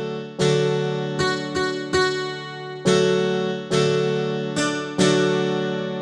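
Background music: an acoustic guitar strumming chords, a new strum every half second to a second, each left to ring and fade.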